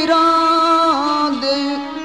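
Pothwari folk music: a long held melodic note that steps down in pitch twice.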